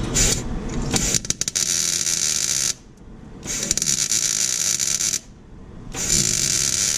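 Welder plug-welding drilled holes in a steel rocker panel to the lip behind it: three crackling, sizzling bursts of about a second and a half each, with short pauses between.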